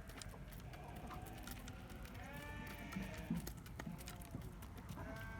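Sheep bleating: a few wavering calls about two seconds in, again soon after, and another starting near the end, over faint scattered clicks and rustling.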